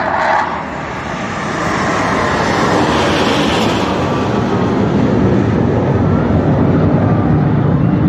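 Jet engines of a formation of military jets flying overhead: a loud, steady rushing roar that swells over the first couple of seconds and then holds.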